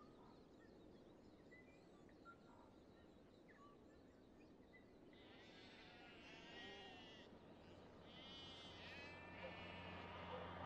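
Faint sheep bleating, two calls about five and eight seconds in, over a quiet rural background.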